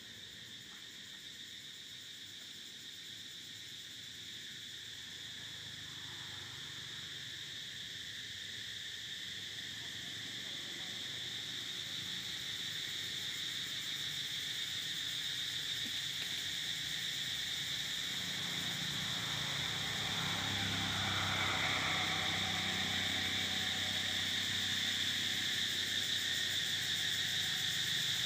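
A steady, high-pitched insect chorus that grows gradually louder, with a fainter, lower sound joining about two-thirds of the way through.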